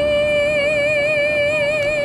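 Background music: a woman's voice holding one long sung note with vibrato.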